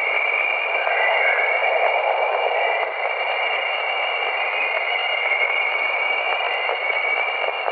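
Radio-style static hiss with several steady high whistling tones running through it, one of them wavering slightly in pitch.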